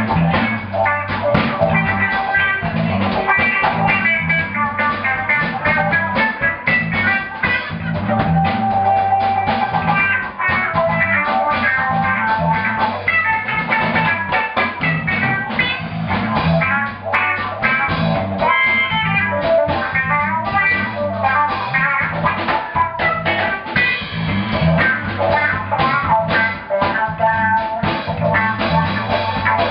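Live blues-rock band music: an electric guitar played over a steady drum beat.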